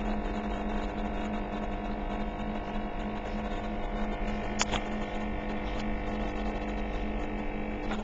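Luwico capsule coffee machine's pump humming steadily as it brews coffee into a cup, with two sharp clicks about halfway through.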